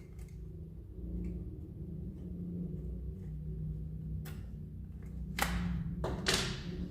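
Handling noise from taking apart an evaporative cooler motor: a faint click about a second in, then a few knocks and scrapes of metal parts in the last few seconds, over a low steady hum.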